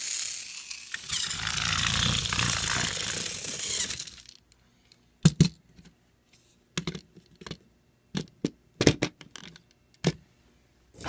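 Battery-powered Trackmaster Thomas motor chassis whirring as its gears and blue plastic wheels spin free in the hand, then switched off about four seconds in. After that come a series of light clicks and knocks of plastic toy engines being picked up and set down.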